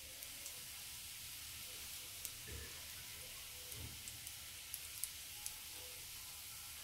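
A few faint clicks and soft taps of a fork laying fried onion onto raw mince patties, with two soft low thumps, over a steady faint hiss.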